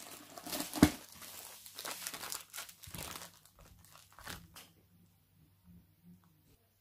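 Clear plastic sleeve around a rolled diamond-painting canvas crinkling as hands grip and twist its end, with one sharp knock just under a second in. The crinkling stops after about four and a half seconds, leaving only faint small rustles.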